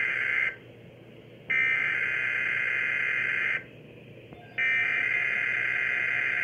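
SAME digital alert header from a Midland weather radio's speaker: harsh buzzing data tones in repeated bursts. The first ends about half a second in, then two more follow, each about two seconds long with a second's pause between them. The header marks the start of an encoded weather alert, here a severe thunderstorm watch.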